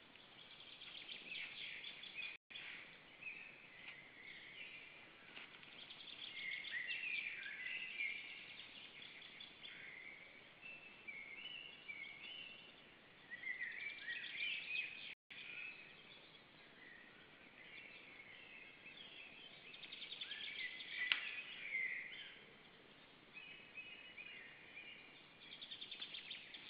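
Several small songbirds singing and calling at once: overlapping chirps, warbles and fast trills. The sound cuts out for a split second twice.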